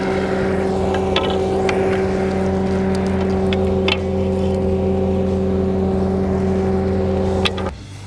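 An engine of heavy machinery running at a steady speed, with a few sharp knocks over it. The sound cuts off suddenly near the end.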